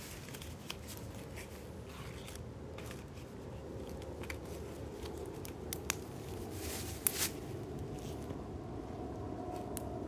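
Fire of dry leaves and sticks crackling in a small metal fire pit: irregular sharp pops and snaps over a steady low hiss, with a louder burst of pops about seven seconds in.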